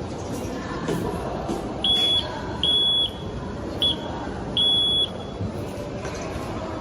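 Morse code keyed on a high-pitched buzzer tone: four beeps, long, long, short, long, over steady background noise.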